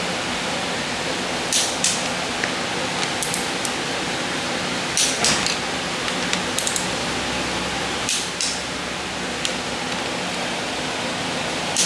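Click-type torque wrench and socket on a Chevy 350 small-block's cylinder head bolts: irregular sharp metallic clicks every second or two, some in pairs, as the bolts are brought up to their final 65 lb-ft torque. A steady hiss sits beneath.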